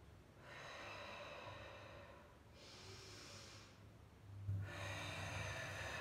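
A woman breathing deeply and audibly during a breathing exercise: three long hissing breaths, the last one, starting about four and a half seconds in, louder.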